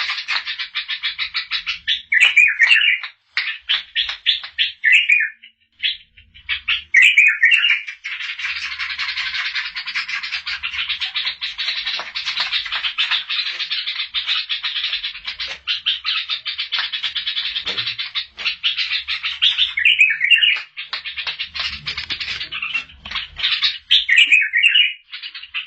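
A caged pet bulbul singing: a long, rapid chattering song broken by short, loud warbled phrases, several of them near the start and two near the end.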